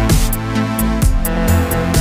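Background music with a steady electronic beat, about two beats a second, over held synth-like chords.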